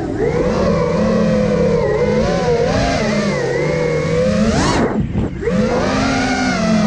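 Four brushless motors and propellers of an iFlight Nazgul Evoque F5 HD FPV quadcopter whining in flight, their pitch rising and falling with the throttle. About five seconds in they rev up sharply, then the throttle is chopped and the sound briefly drops before it picks up again.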